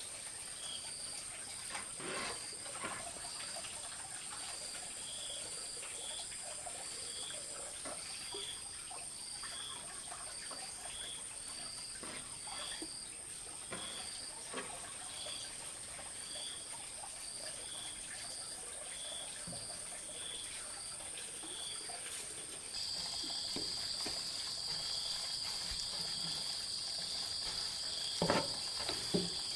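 Insects calling: a steady high buzz with a short chirp repeating about once a second. About 23 seconds in, the chorus switches to a louder, different steady buzz. Faint light knocks come now and then, with two sharper taps near the end.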